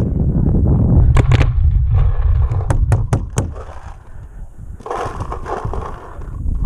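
Paintball markers firing a scattered string of sharp pops, about six shots in the first three and a half seconds, over a heavy low rumble that stops soon after the last shot.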